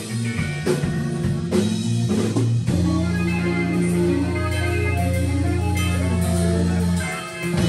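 Rock band playing electric guitar and drum kit: drum hits over the first few seconds, then a long held low chord from about three seconds in, dipping briefly near the end before the band comes back in.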